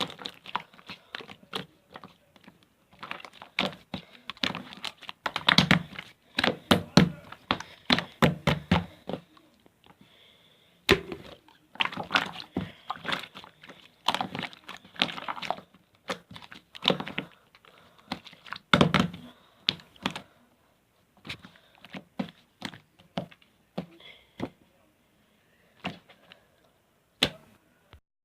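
Irregular clicks and knocks in quick clusters separated by short pauses. They thin out over the last several seconds.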